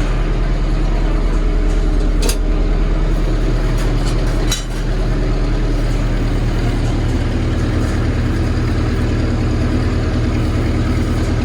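A machine running steadily with a loud, even low hum, with two brief clicks about two and four and a half seconds in.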